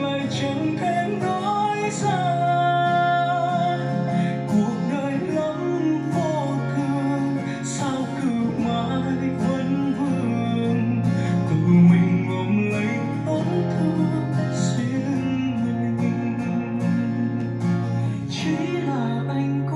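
A slow song with guitar and a singing voice over a sustained bass line.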